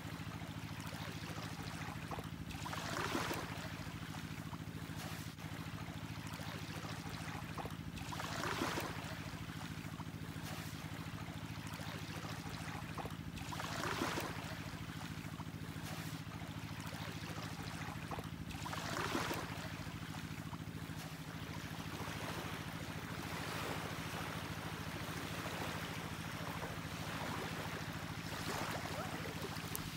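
Small waves washing up on a sandy shore, one swell of rushing water about every five seconds, over a steady low hum.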